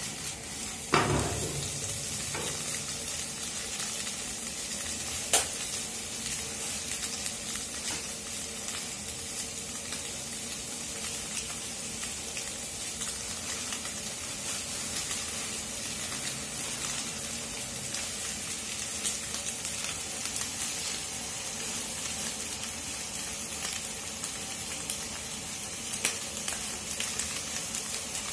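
Vegetables and scrambled egg sizzling in oil in a non-stick frying pan over a gas flame, a steady frying hiss as they are stir-fried with a wooden spatula. A few sharp knocks of spatula and pan, the loudest about a second in.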